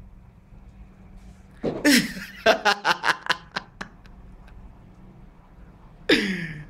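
A man laughing: a longer laugh about two seconds in that breaks into a quick run of short bursts, then another brief laugh falling in pitch near the end.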